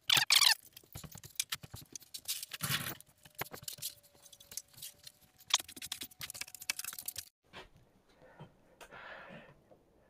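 Broom sweeping a wooden plank floor: quick, irregular scratchy strokes that stop about seven seconds in.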